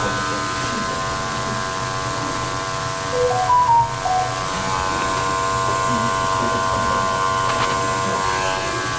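Electric dog grooming clipper running with a steady buzz while trimming a toy poodle's coat. A few brief high squeaks come about three to four seconds in.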